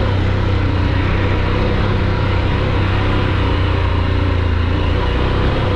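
Harley-Davidson Pan America's Revolution Max 1250 V-twin running at an even throttle while riding off-road, its engine note holding steady under a constant rush of wind and road noise.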